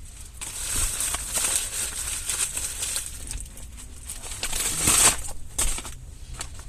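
Paper food wrapping crinkling and rustling as it is handled, a longer stretch of rustling followed by a couple of louder crackles.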